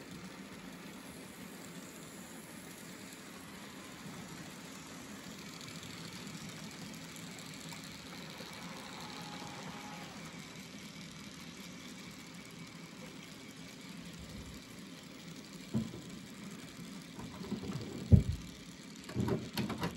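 Steady low hum of an N scale model train running along the layout track. Near the end come a few sharp knocks, one much louder than the rest.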